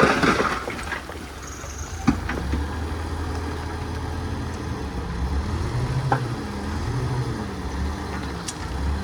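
Diesel engine of heavy earthmoving equipment running with a low, steady rumble that swells a little partway through, with a few sharp clanks. A brief loud rush of noise comes right at the start.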